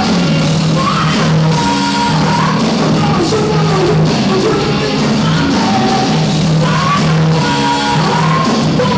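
Live rock band playing with a lead singer, guitar and drums, in a poor-quality audience-style recording where the words are hard to make out.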